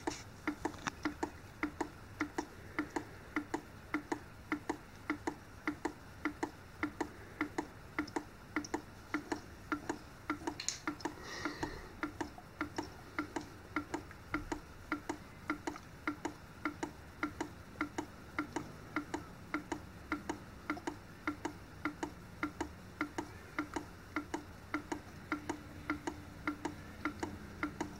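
OI Analytical 9310 on-line cyanide analyser running, its mechanism ticking steadily at about two and a half ticks a second over a faint hum.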